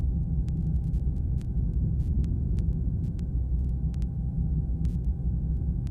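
Steady low rumble of a helicopter's engine and rotor, with a faint steady whine above it.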